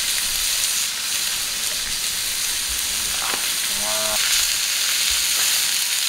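Food sizzling steadily on a hot griddle, an even frying hiss.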